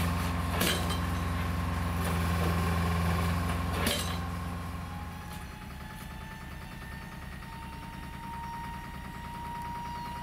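Piling rig's diesel engine running steadily, with two sharp metallic clanks, one about a second in and one near four seconds. After about five seconds the sound drops to a quieter engine idling with an even low throb and a faint steady whine.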